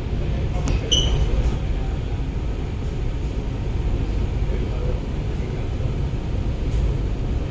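Steady rumble of an MTR Island Line Q-Train (CRRC Qingdao Sifang) running on the rails, heard from inside the carriage, with a brief high squeak about a second in.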